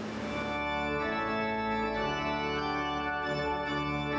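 Richards, Fowkes & Co. pipe organ playing sustained chords, changing chord about two seconds in and again near the end.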